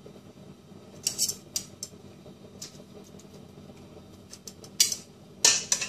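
Metal kitchen tongs clinking against a stainless steel pot and a clay pot as abalone pieces are lifted across: a few sharp, scattered clicks, the loudest two near the end.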